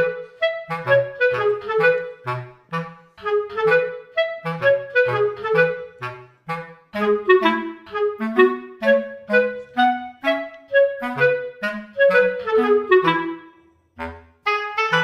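Light, bouncy background music: a woodwind melody, clarinet-like, of short detached notes over a bass line, with a brief break near the end.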